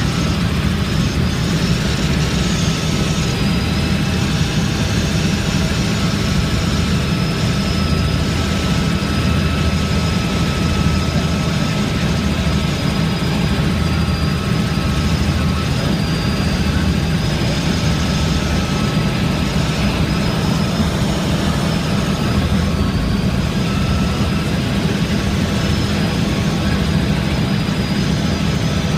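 Helicopter in flight: a loud, steady engine and rotor drone with an even low pulsing, and a thin high whine over it.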